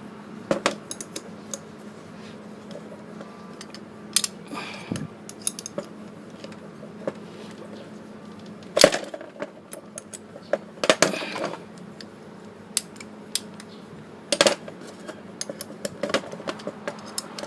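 Small metal parts and hand tools clinking and tapping while a motorcycle front brake master cylinder is taken apart. The clicks come irregularly, with a few short scrapes and one sharper knock about nine seconds in.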